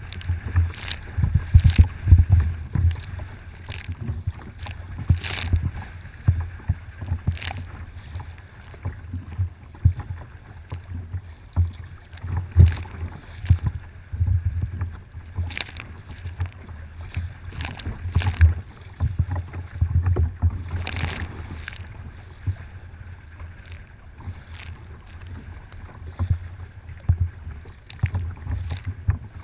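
Gusty wind buffeting the microphone in a low rumble, with water splashing against a kayak's bow at irregular intervals on choppy water.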